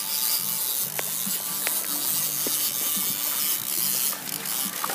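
A fishing reel being cranked to bring in a hooked mahi-mahi: a mechanical whirring and ratcheting that stops and starts, with a few sharp clicks, over a hiss of wind and water. Splashing near the end as the fish thrashes at the surface.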